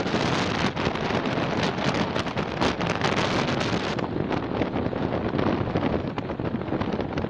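A moving passenger train's wheels and carriage making a dense, steady rattling clatter, mixed with wind buffeting a microphone held out of the carriage window.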